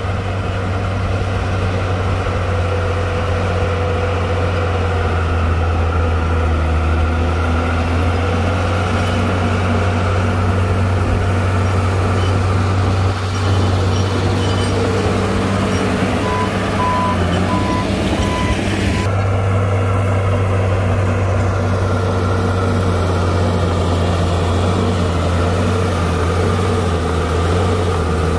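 Heavy diesel engine of earthmoving machinery running steadily with a deep hum. About two-thirds through, a back-up alarm gives a few short high beeps.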